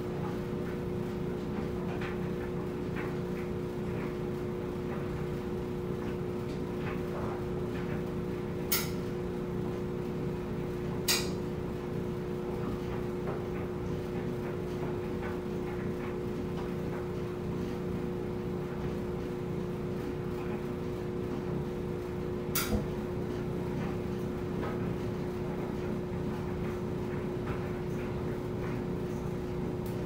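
Front-loading clothes dryer running, its drum tumbling a load of clothes with a steady hum and low rumble. Three sharp clicks, two about nine and eleven seconds in and one about twenty-two seconds in.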